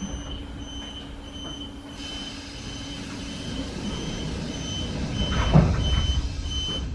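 SKM EN71 electric multiple unit pulling slowly away from a station platform, its low running rumble building. A steady high beep repeats about twice a second, and there is a louder knock about five and a half seconds in.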